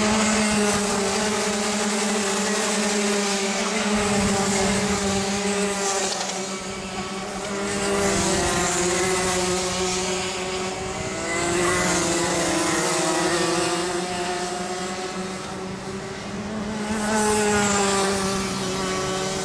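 A pack of Rotax Max Junior 125 cc two-stroke kart engines racing, several at once, their pitch rising and falling as the karts brake into and accelerate out of the corners. The sound swells as groups of karts pass, a few times.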